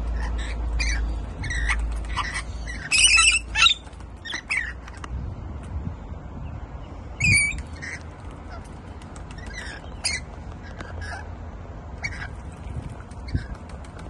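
Rainbow lorikeets screeching in short, harsh calls, over and over, with the loudest bursts about three seconds in and again a little past seven seconds. A low rumble sits under the first few seconds.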